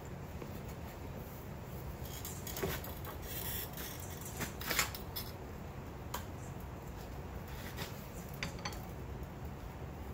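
Light metallic clinks and scrapes of steel tongs being worked by hand, the riveted jaws and reins knocking against each other as they are opened and closed, with the busiest clinking a few seconds in. A steady low hum runs underneath.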